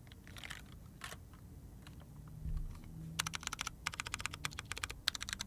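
Typing on a Keycult TKL mechanical keyboard with an aluminium plate, lubed polished Cherry MX Brown (Hyperglide) switches and PBT keycaps. A few separate keystrokes at first, then fast continuous typing from about halfway through.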